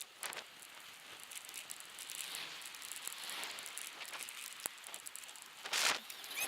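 Rustling and crackling noise with scattered clicks, like movement over a dirt trail, with a short loud burst of noise near the end.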